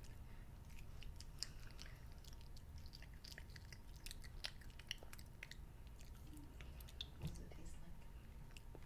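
A child chewing thin strands of sour-apple candy grass, faint with scattered small wet mouth clicks.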